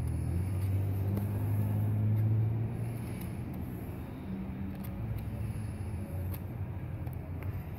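A motor vehicle's engine running with a low steady hum, louder for the first two and a half seconds and then easing off. A few faint clicks from the knife carving the stick.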